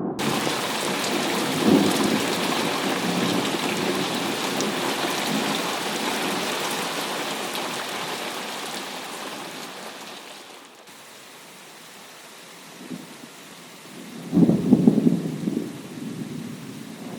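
Heavy rain in a thunderstorm: a dense hiss of rainfall that starts suddenly, with low rolls of thunder underneath. The rain grows lighter about two-thirds of the way in, and a louder thunder rumble comes near the end.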